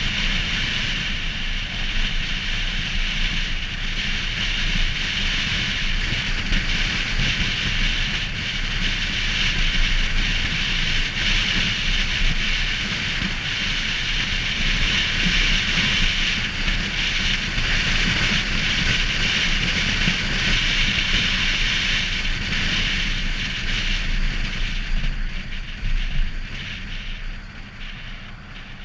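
Steady wind rush and road noise on a camera mounted outside the front of a moving car, with a low rumble underneath; it dies down over the last few seconds.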